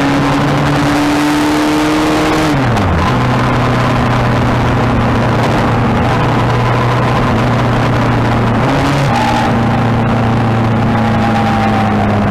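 Motorcycle engine running under way, with a strong rush of wind noise. The engine note drops sharply about two and a half seconds in as the bike slows or shifts, then holds steady.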